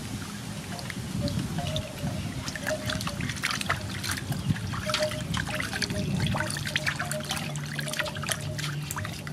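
Water splashing and trickling in a metal basin as a whole raw chicken is rinsed by hand, with many small splashes and drips; the bird is lifted so water pours off it back into the basin.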